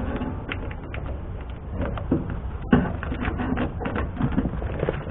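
Work noises of plastic vapor-barrier sheeting being pressed and handled on the inside of a truck door: scattered light rustles and clicks, with one sharper knock about two and a half seconds in.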